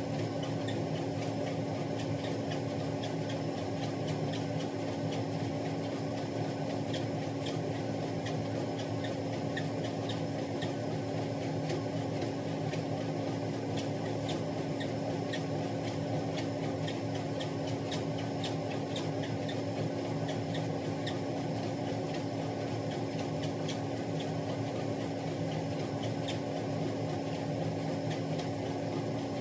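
Treadmill running steadily, its motor and belt giving a constant hum, with light footfalls of someone walking on the belt at an even pace.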